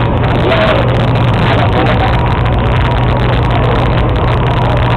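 Ferry boat's engine running with a steady low drone, with the chatter of passengers' voices over it.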